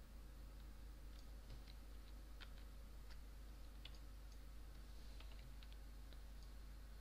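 Faint, irregular clicking of a computer mouse and keyboard, about a dozen scattered clicks, over a steady low electrical hum.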